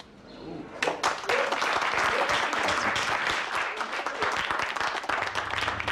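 A group of people applauding. The clapping starts about a second in and carries on densely, with a few voices mixed in.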